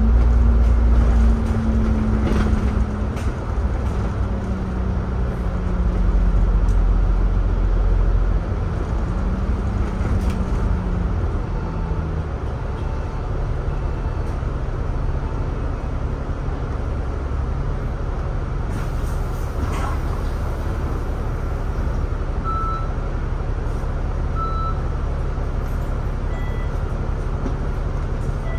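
Double-decker bus's engine and drivetrain heard from on board: a low rumble with a whine that shifts in pitch as the bus pulls along, settling to a steadier, lower drone about twelve seconds in.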